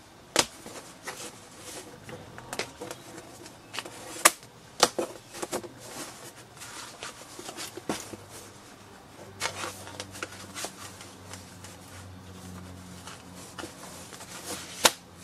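Crinkling clear plastic wrap and handled card, with a few sharp snaps as die-cut cardboard fridge magnets are pressed out of their backing sheet.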